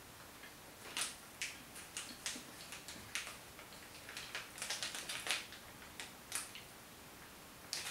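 Plastic candy bag crinkling as it is handled and gummies are taken out: a string of short, irregular crackles.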